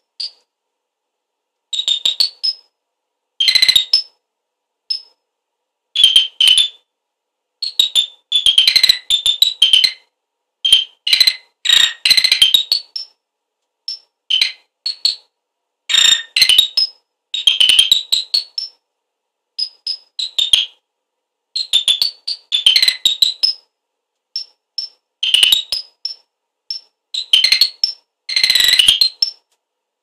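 Circuit-bent electronic circuit chirping like birdsong through a small speaker. The chirps come in irregular bursts of rapid, high electronic warbles, each from a fraction of a second to about a second and a half long, with short silent gaps between them.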